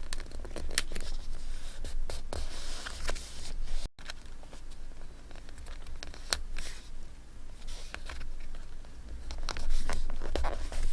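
Paper and stationery being handled for scrapbooking: rustling, scraping and tearing of paper, with scattered small clicks and taps. The sound cuts out for an instant about four seconds in.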